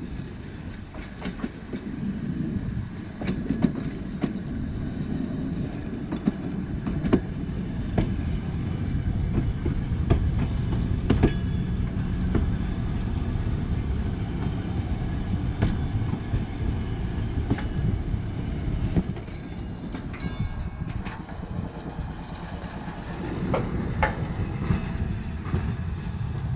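Electric streetcar running on the track: a steady low rumble of motors and wheels, with repeated clicks as the wheels cross rail joints.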